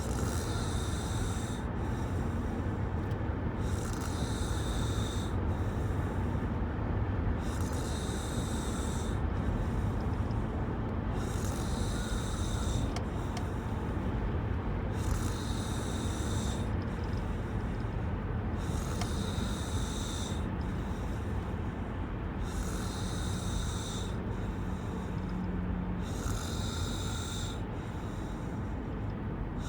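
Snoring in a slow, regular rhythm: about eight breaths, one every three and a half to four seconds, over a steady low rumble.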